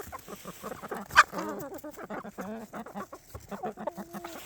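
Chickens clucking, with many rapid short taps mixed in and one loud short call about a second in; a longer, held call near the end.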